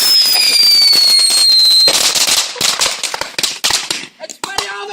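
Firework whistling with a slowly falling pitch, then, about two seconds in, a rapid crackle of firecracker pops that thins out to scattered cracks.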